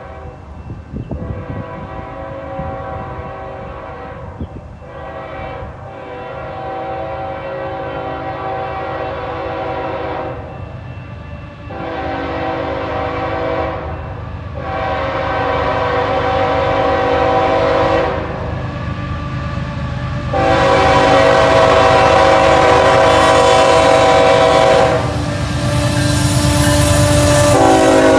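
A CN freight train's diesel locomotives approach with a low engine rumble while the lead unit sounds its air horn in a series of long blasts. Horn and rumble grow louder as the train nears. Near the end the horn's pitch drops as the lead locomotive passes.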